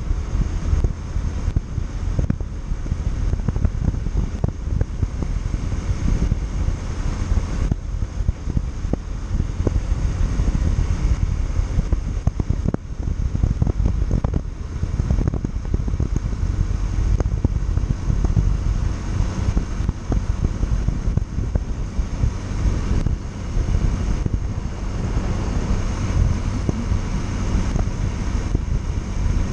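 Wind buffeting the microphone on a moving Yamaha Factor 150 motorcycle, with the bike's single-cylinder four-stroke engine running steadily underneath.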